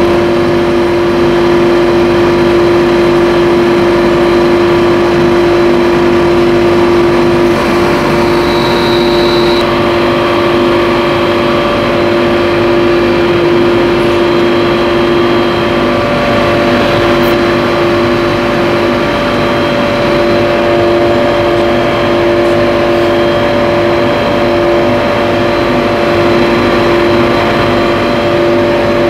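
Hertz HSC FRECON 60 inverter-driven rotary screw air compressor running steadily under its 60 kW motor: a loud, even machine hum with constant pitched tones.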